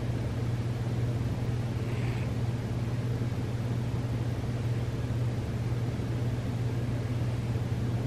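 Sleeping cat snoring close to the microphone: a steady low rumble, with a faint whistle of breath about two seconds in.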